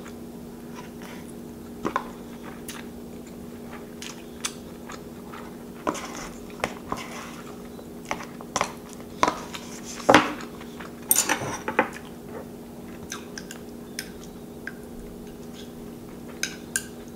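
Close-miked eating sounds: a spoon and chopsticks clicking and scraping in a paper cup of rice, with soft chewing in between. Scattered short sounds, busiest in the middle, over a faint steady hum.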